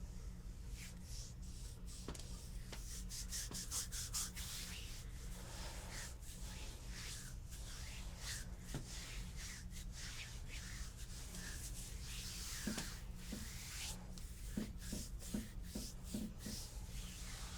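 Hands rubbing and stroking over skin during a deep-tissue body massage, in repeated short rubbing strokes, over a steady low hum.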